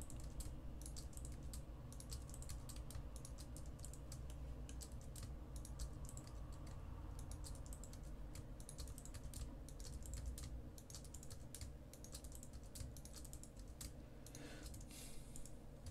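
Computer keyboard keys and mouse buttons clicking faintly in quick, irregular succession, over a low steady hum.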